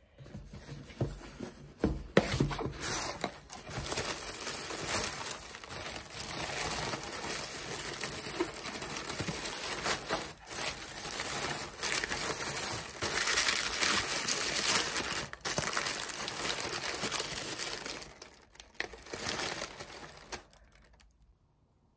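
White honeycomb kraft packing paper crinkling and rustling as it is pulled out of a cardboard box and unwrapped by hand, with a few knocks about two seconds in. The rustling stops about a second before the end.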